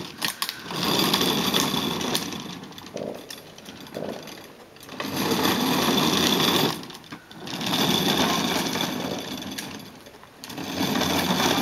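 Hard plastic wheels of a toddler's ride-on push car rumbling and rattling over a rough asphalt driveway, in several runs that swell and fade, with quieter gaps between.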